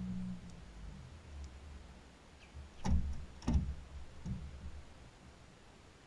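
Two sharp knocks about half a second apart, each with a short ringing tail, then a lighter third, over a low rumble. They come as the angler sets the hook from an aluminum boat, the rod loading up against a fish.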